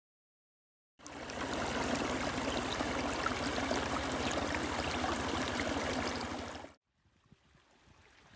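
Small stream splashing and cascading over rocks, a steady rush of water that starts suddenly about a second in and cuts off abruptly shortly before the end, leaving only faint background sound.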